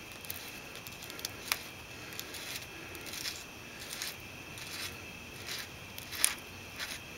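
Small metal clicks and light scrapes as the front spindle nut is unscrewed by hand from the wheel-bearing spindle. There is a sharp click about a second and a half in and a louder one near the end.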